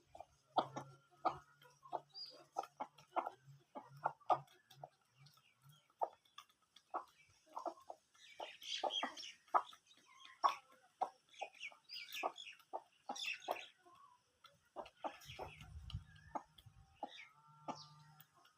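Several chickens clucking, with short, irregular calls throughout and a busier stretch of higher-pitched calls in the middle.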